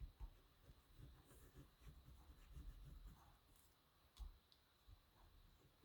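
Near silence with faint handling of paper cardstock on a table: soft low bumps and light rustles, with a sharper click about four seconds in.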